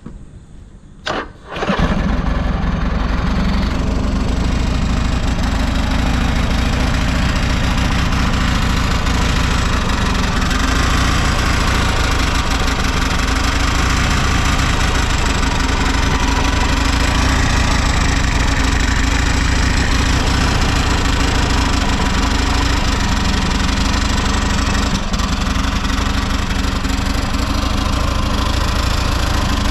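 Buell XB12SS Lightning's 1203 cc air-cooled V-twin on a cold start: a brief burst of cranking, then it catches at once a couple of seconds in and settles into a steady idle. The engine runs in good condition with no abnormal noises.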